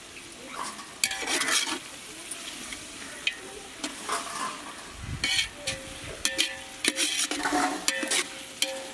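Long metal spatula stirring chicken masala in a large metal pot, with irregular scrapes and sharp clinks against the pot over a low sizzle from the cooking curry.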